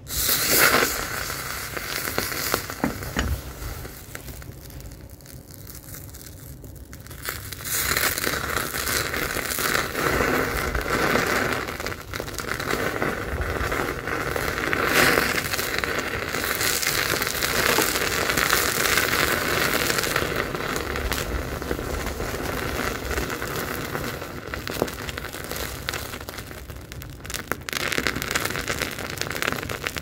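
Molten bronze in a crucible furnace crackling and spitting as zinc reacts violently with the liquid copper: a dense, continuous crackle of small pops. It starts abruptly and grows louder about eight seconds in.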